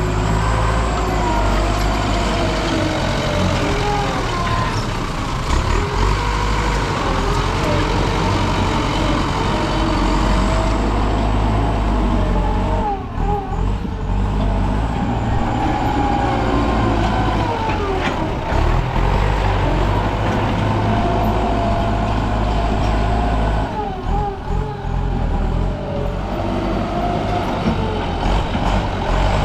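Excavator's diesel engine running steadily under work, with a whine that rises and falls in pitch as the machine digs. The sound dips briefly twice.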